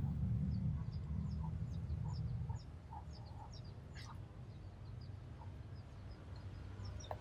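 Small birds chirping again and again in short high notes over a steady low rumble, which drops off a little under halfway through; a couple of soft clicks.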